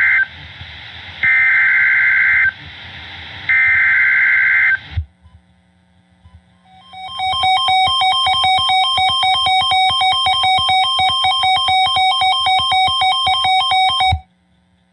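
Three Emergency Alert System SAME digital data bursts, each a harsh warbling screech about a second long, with a short gap between them. After a pause, a buzzy synthesizer tune of fast, evenly repeated notes plays for about seven seconds and cuts off suddenly.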